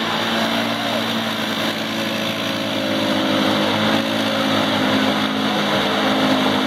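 ATV engines running hard at steady revs as the quads plow through a deep mud and water pit, with the hiss of churned mud and water.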